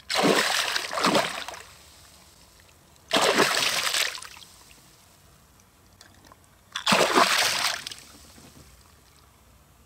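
A hooked pike thrashing at the water's surface, splashing hard in three bursts a few seconds apart.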